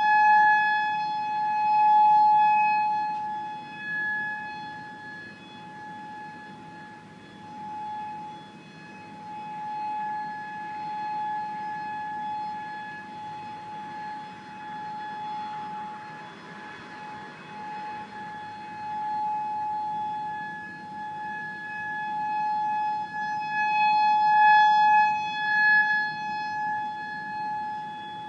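Outdoor tornado warning siren sounding one steady tone, warning of a tornado. It is loudest near the start and again near the end, fading down in between.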